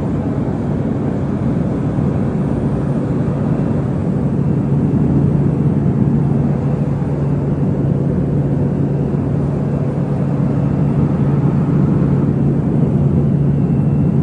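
Steady drone of a business jet's cabin in flight: engine and airflow noise with a steady low hum.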